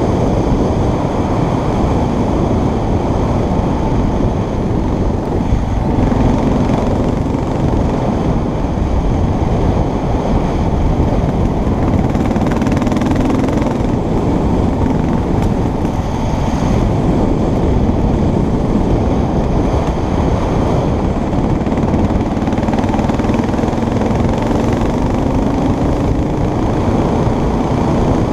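Heavy wind buffeting the microphone of a fast-moving vehicle on a dirt road. Under it an engine is faintly heard, its pitch rising a few times as it speeds up.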